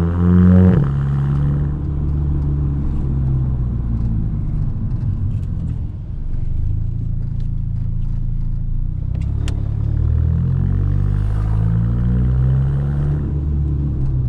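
Exhaust of a VW Mk6 GTI's turbocharged 2.0-litre four-cylinder under acceleration, picked up by a microphone mounted for exhaust sound. The revs climb and drop suddenly just under a second in, as at an upshift, then run steadily, climb again slowly from about nine seconds and ease off near the end.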